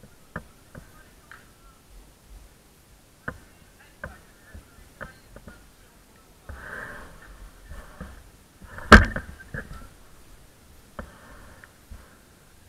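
Football being kicked during a match: scattered sharp thuds, with one much louder kick about nine seconds in and faint shouts from players.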